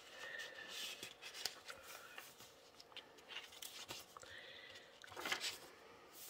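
Faint rustling and light ticks of paper as pages of a handmade paper journal are handled and turned, with a louder rustle a little past five seconds in.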